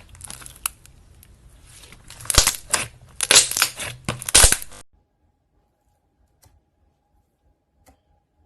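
Slime being squeezed and pressed by hand, giving irregular crackling, crunching pops. The sound cuts off suddenly about five seconds in, leaving near silence with a couple of faint clicks.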